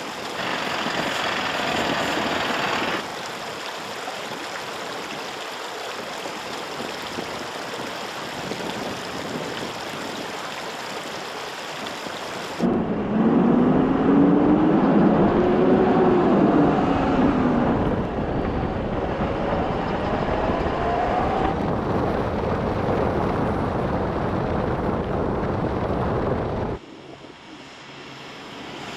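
Mercedes-Benz Unimog U 4023 diesel truck driving on a snowy road: steady engine and tyre rumble with wind noise, in several cut-together takes. In the middle take the engine note rises and then falls. Near the end the truck approaches and grows louder.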